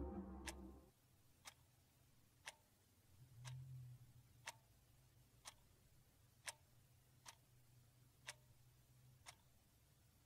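Clock ticking steadily at about one tick a second, faint, over a low hum. A music bed dies away in the first second.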